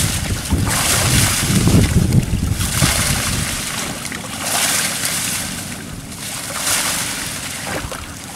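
Water sloshing and splashing around a small boat, in swishing surges about every two seconds, with wind buffeting the microphone as a low rumble.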